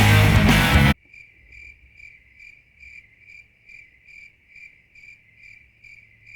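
Rock music with heavy guitars cuts off suddenly about a second in. A cricket then chirps steadily, about two to three chirps a second.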